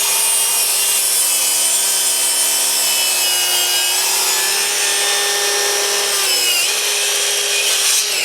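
Bosch Bi-Turbo cordless 7 1/4-inch sliding miter saw running at full speed and cutting through wood, likely a cut at its full 47-degree bevel. The blade note holds steady through the cut and starts to wind down, falling in pitch, at the very end.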